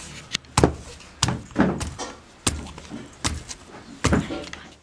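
Stone pestle (varvanta) pounding stiff urad dal papad dough on a grooved stone slab (pata): a run of dull, heavy thuds, roughly one a second, with lighter knocks in between. This is the beating that softens the dough and makes the papad light.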